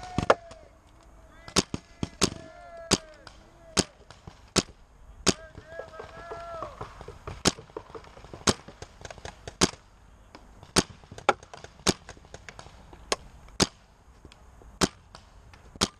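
Paintball markers firing in sharp, irregular pops, sometimes two or three in quick succession.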